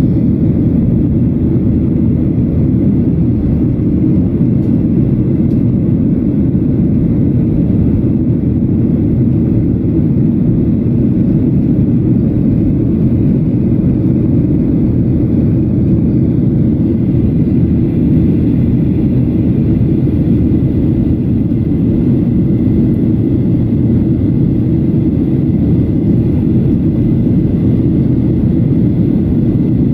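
Steady low roar inside the cabin of a Boeing 737-800 in flight: its CFM56-7B jet engines and the airflow over the fuselage.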